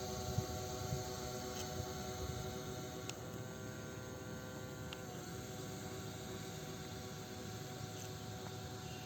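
Twin small electric motors driving air propellers on a homemade RC air boat, running with a steady high whine and a slight drop in pitch about five seconds in.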